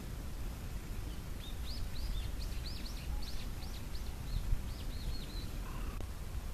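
A small bird calling: a quick series of short, high, arching chirps, about four a second, starting about a second in and stopping near the end, over a steady low background noise.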